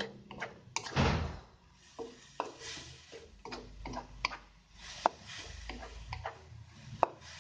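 Wooden spatula stirring grated coconut in a nonstick wok, knocking and scraping against the pan in irregular clicks, with one louder scrape about a second in.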